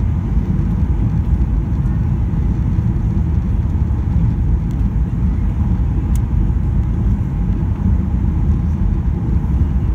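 Steady low cabin rumble of a Boeing 737-800 from a seat over the wing on final approach, engine and airflow noise, with one faint tick about six seconds in.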